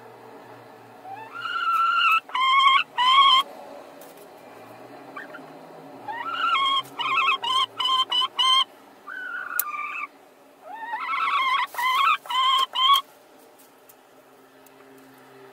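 Hens in a nest box calling in several runs of short, rising squawks, with quiet gaps between the runs.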